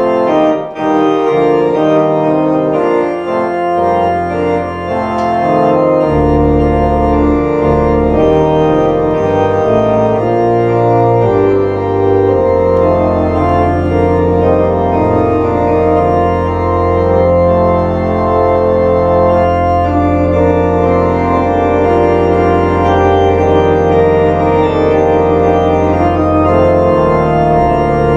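Two-manual church organ playing sustained full chords, with deep pedal bass notes coming in about four seconds in and held underneath.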